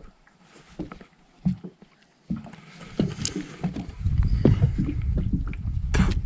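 Knocks and handling noise on a small fishing boat: scattered faint clicks at first, then from about four seconds in a loud low rumble with irregular knocks and a sharp crack near the end.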